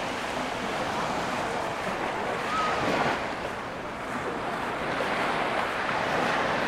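Mediterranean surf breaking and washing up on a sand beach, the rush of the water swelling and easing every few seconds.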